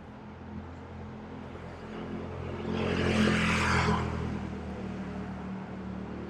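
Street traffic: a steady engine hum, with a vehicle passing on the street that swells to loudest about three to four seconds in and then fades.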